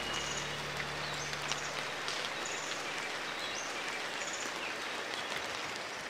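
Steady rain falling, with short high bird chirps repeating throughout.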